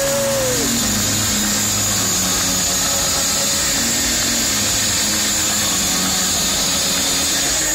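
Electronic dance music from a festival sound system, picked up by a phone as a loud, distorted, noisy wash. A held synth tone slides down in pitch about half a second in, leaving a steady hiss-like roar with faint tones beneath.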